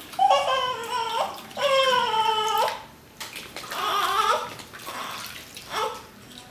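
Newborn baby crying while being bathed: two long wails in the first three seconds, a shorter cry about four seconds in, and a brief one near the end.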